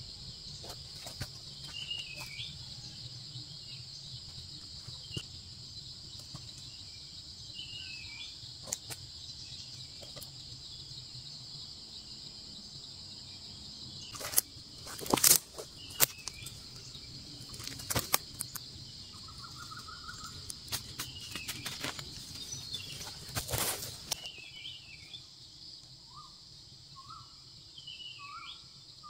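Dry-forest ambience: a steady high drone of insects, with a small bird giving a short falling chirp every couple of seconds. About halfway through, and again a little later, loud rustling and crackling of dry leaves and brush as someone works in the undergrowth. Near the end comes a quick run of five short calls.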